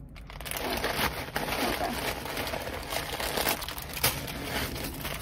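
A thin clear plastic bag packed with red latex balloons crinkling as it is handled, a dense run of crackles.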